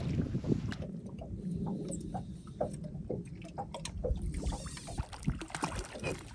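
Irregular small clicks and light splashes of water around a small boat's hull while a hooked trout thrashes at the surface.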